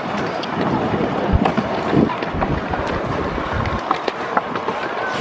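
Several kick scooters rolling over a concrete path, their wheels making a steady rolling noise with scattered clicks, while wind buffets the microphone in low rumbling gusts.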